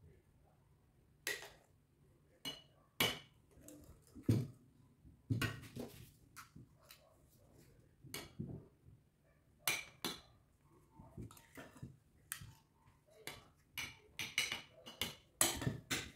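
Kitchen utensils and dishes clinking and knocking during food preparation: a string of short, irregular clicks and taps, a few of them heavier knocks.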